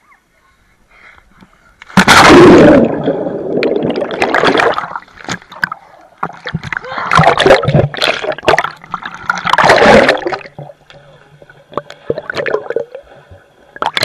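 Water gurgling and splashing around a camera in a waterproof case as it moves through pool water, heard muffled through the housing. It comes in loud, uneven surges that begin about two seconds in, with a sharp splash at the very end.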